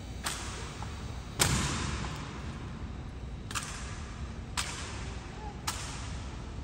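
Honor guards' synchronized rifle drill: five sharp, echoing cracks as the rifles are slapped and caught in unison. The second crack is the loudest, and each one rings briefly off the stone walls.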